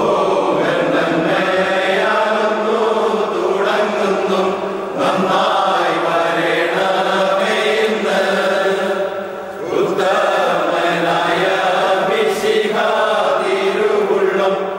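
A group of voices singing a slow, chant-like song with long held notes.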